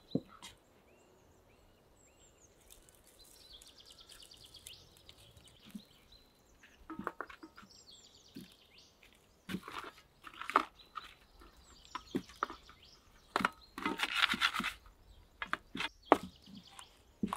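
Hands rubbing spice into boiled chicken pieces in a metal tray and pulling the meat apart: scattered wet tearing and clicks, louder in the second half. Small birds chirp faintly in the first few seconds.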